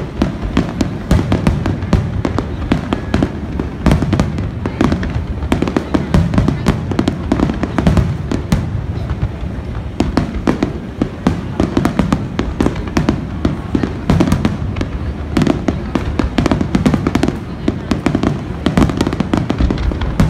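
Rapid barrage of aerial firework shells bursting, with many bangs overlapping and crackling without a break.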